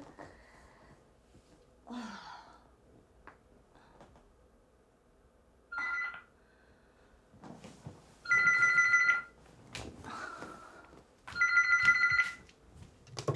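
Cordless landline phone ringing with an electronic ring: a short ring about six seconds in, then two longer rings about three seconds apart.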